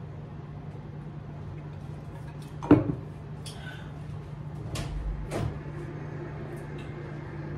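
A single loud knock about three seconds in, then three sharper clicks, over a steady low hum.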